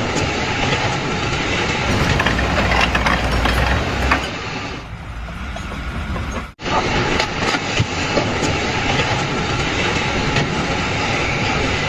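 Loud, continuous mechanical clattering and rumbling that cuts out for an instant about six and a half seconds in.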